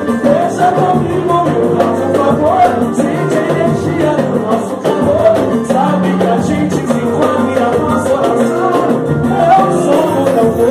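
Music: a band song with a steady drum beat under sustained chords and a gliding melodic line, in a passage between the sung verses.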